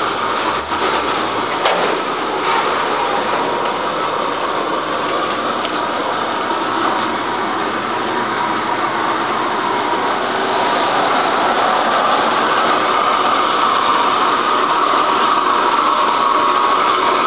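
An engine running steadily, with a few light clicks in the first couple of seconds and growing a little louder about ten seconds in.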